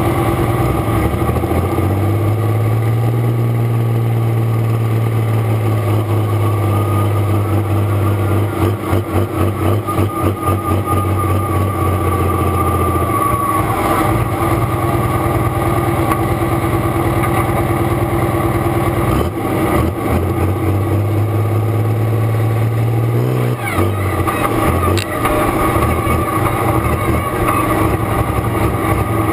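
Pro Stock pulling tractor's diesel engine idling and running at low revs, heard from the driver's seat, with a brief rise in revs about three quarters of the way through.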